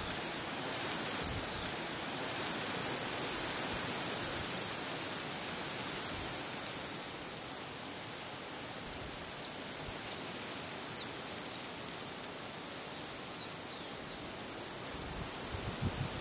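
Marsh-field ambience: a steady high-pitched insect drone over an even background hiss, with a few faint, brief bird chirps from about ten seconds in.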